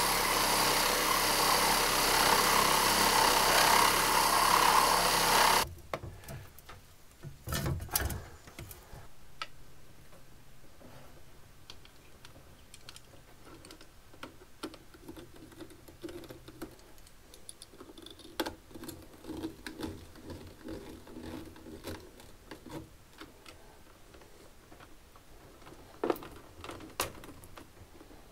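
Cordless reciprocating saw cutting through a white plastic boiler flue pipe, running steadily for about six seconds and then stopping abruptly. After that come quieter scattered clicks and rustles of wires being handled.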